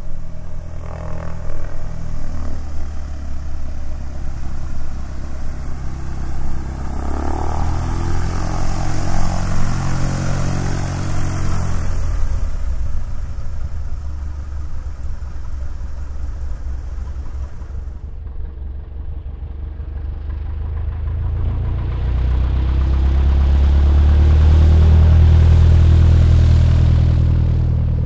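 Cessna 172's piston engine and propeller running at taxi power, heard from outside as the plane taxis toward the listener. About two-thirds through, the high hiss drops out suddenly. The engine then grows steadily louder, loudest a few seconds before the end as the aircraft draws near.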